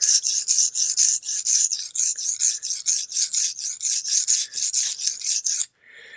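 Steel knife blade honed on a Japanese natural whetstone: quick back-and-forth scraping strokes, about five or six a second, that stop suddenly near the end. The stone is cutting well, raising swarf.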